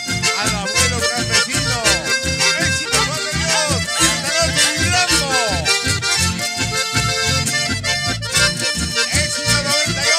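Live band music led by several button accordions playing together, over guitars and bass with a steady beat.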